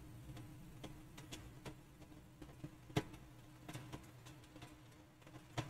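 Faint, scattered clicks of a computer mouse over quiet room tone, the sharpest about three seconds in.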